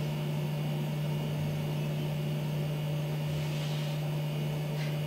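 Steady low electrical hum, the mains hum of the recording setup, holding one unchanging tone. A faint soft hiss comes about three and a half seconds in, and a tiny click near the end.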